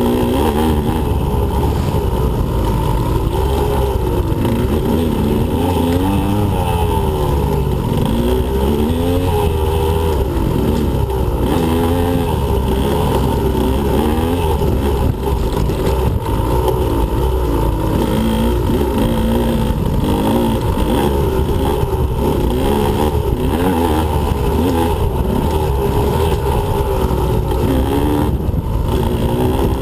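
2015 Husqvarna TE125 two-stroke dirt bike engine being ridden hard, its revs rising and falling over and over.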